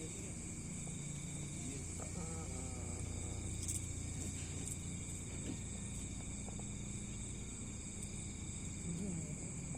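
A person snoring in their sleep, a low steady sound beneath a continuous high chorus of crickets.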